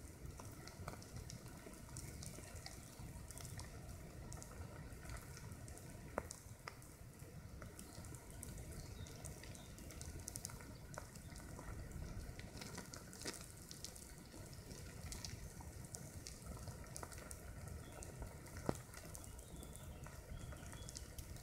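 A wood ant mound sizzling: thousands of ants crawling over the dry conifer needles of the nest make a faint, continuous crackling hiss. A few louder single clicks stand out, about six, thirteen and nineteen seconds in.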